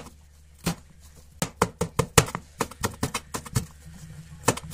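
Knife chopping a bell pepper into strips on a plastic cutting board: a single cut, then quick chops about five a second from about a second and a half in.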